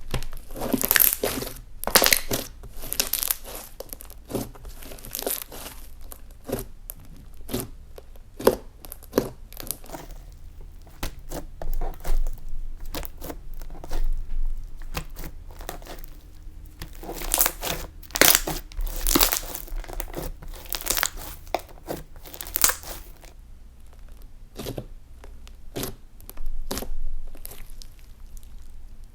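Slime being squeezed, stretched and folded by hand, giving irregular bursts of sticky crackling and popping as air pockets in it break.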